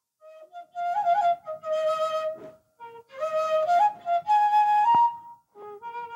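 Background music: a flute playing a slow melody of held notes in short phrases, with brief pauses between them.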